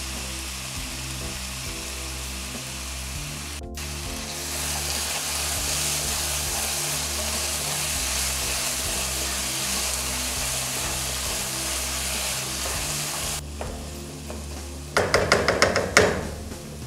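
Grated ash-gourd halwa frying and sizzling in ghee in a non-stick kadai as a wooden spatula stirs it; the sugar syrup has cooked off and the ghee has separated, so the mixture is frying in fat. Near the end a quick run of sharp clicks and knocks.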